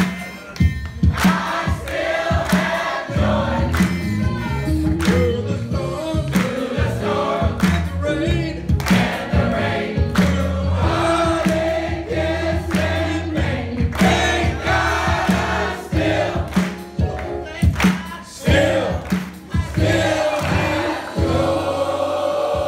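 Large mixed choir of men's and women's voices singing together, with sharp hand claps on the beat, a bit more than one a second.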